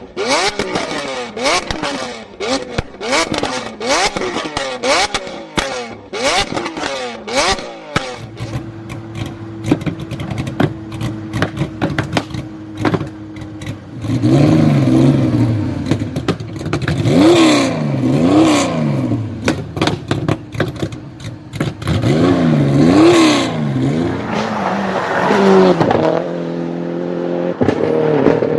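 Performance car engines revved hard, with sharp exhaust pops and crackles over quick throttle blips in the first part. Next there is a steady idle. Then come louder revs rising and falling in long sweeps.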